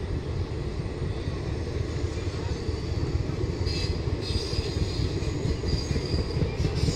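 ICF passenger coaches of an express train rolling past as it gathers speed, their wheels on the rails making a steady low rumble. A faint high-pitched squeal joins in from about halfway through.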